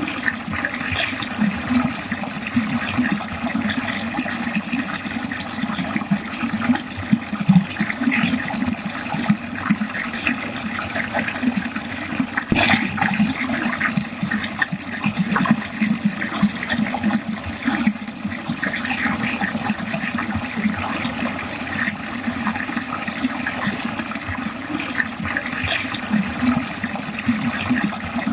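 Water running steadily down a drain, a continuous unbroken flow.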